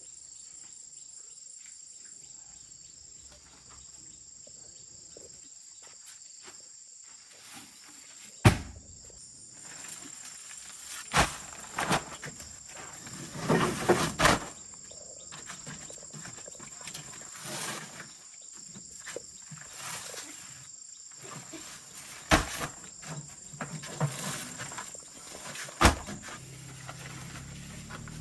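A steady, high-pitched chorus of insects, with scattered sharp knocks and clatter: a few single knocks and a short burst of clattering about halfway through.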